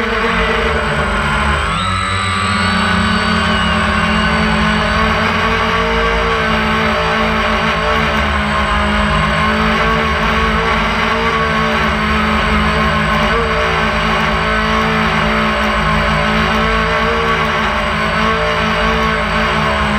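DJI Phantom 1 quadcopter's four motors and propellers, heard from the camera mounted on the drone: a steady multi-tone whine and hum. Its pitch shifts about two seconds in as the drone climbs, then holds steady.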